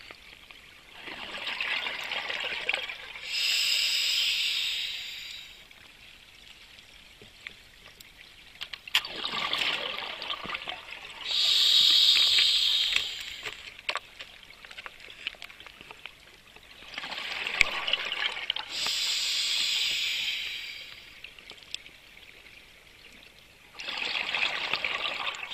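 Scuba diver breathing through a regulator underwater: bursts of exhaled bubbles alternate with the hiss of air drawn through the demand valve, about one breath every eight seconds.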